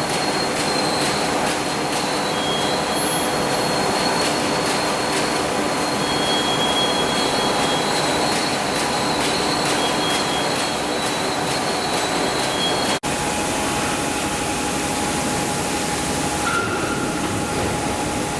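Steel coil slitting line running: a steady, loud mechanical rumble and hiss with sustained high whining tones. A brief dropout comes about two-thirds through, after which the whine changes pitch.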